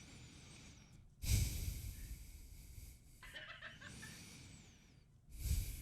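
A man breathing slowly and close to the microphone: a loud breath about a second in, a softer one in the middle, and another loud breath near the end.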